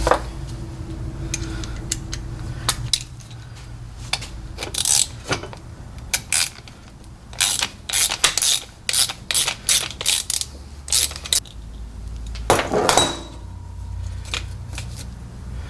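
Hand tools clicking and clinking against metal as the fuel line fitting is worked loose from an old fuel filter: an irregular run of sharp clicks, thickest toward the middle, over a low steady hum.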